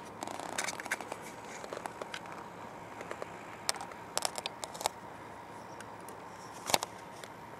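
Scattered light clicks and crackles over a steady faint hiss and thin hum, with one louder click near the end.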